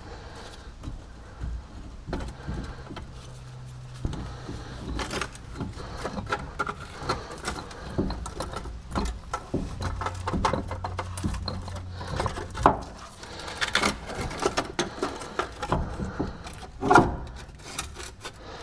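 Metal clinks, knocks and scrapes of a new wheel bearing hub assembly being handled and fitted into the truck's steering knuckle, with two louder knocks, one past the middle and one near the end. A steady low hum sits underneath.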